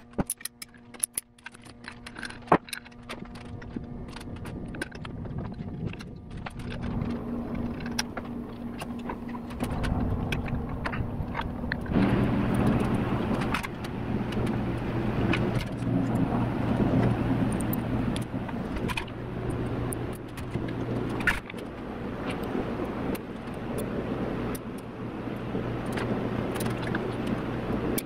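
Clicks and clinks of metal hose clamps and parts being handled as rubber PCV hoses are fitted to a bare Subaru EJ25 engine. A steady low hum comes in about a third of the way through and continues under the clicks.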